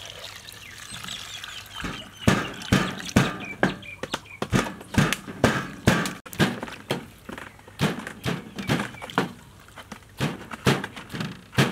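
A cleaver chopping on a wooden cutting board: a long run of irregular, solid knocks, about two or three a second, starting about two seconds in. Before it, water swishes in a steel bowl as vegetables are rubbed clean.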